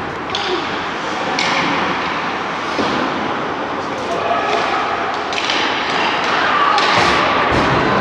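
Ice hockey game in an echoing rink: several sharp knocks and thuds, typical of puck, sticks and bodies hitting the boards, over a steady wash of skating and voices.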